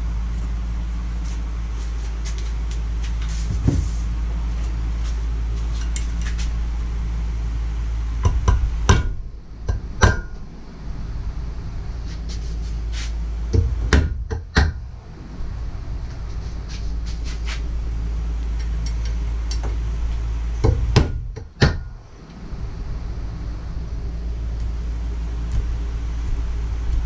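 Hammer blows on a punch against a steel hydraulic-ram gland cap held in a bench vise, knocking out the centre-punch stakes that lock its seal in: sharp metal-on-metal taps in short clusters, the loudest about nine, fourteen and twenty-one seconds in, over a steady low hum.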